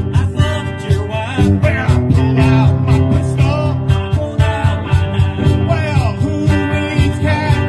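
Live country-punk band playing a song: hollow-body guitar, bass and a steady beat, loud and continuous.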